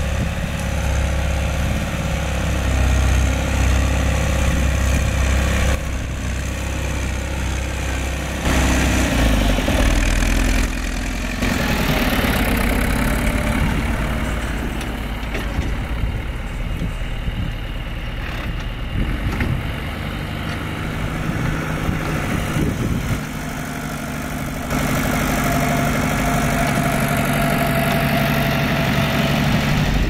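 John Deere 2850 tractor's diesel engine running steadily as it pulls an offset disc harrow through a grass field. Its note and loudness change abruptly several times as the shots change.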